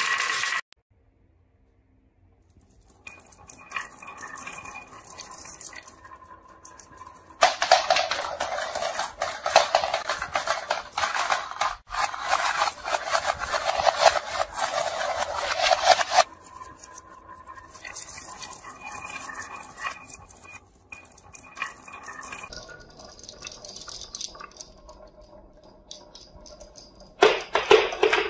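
Glass marbles rolling and clacking down a wavy wooden marble-run track and dropping into a plastic toy dump truck: dense, loud clattering from about 7 to 16 seconds in, lighter rattling either side, and another loud run of clicks near the end. A brief near-silence comes about a second in.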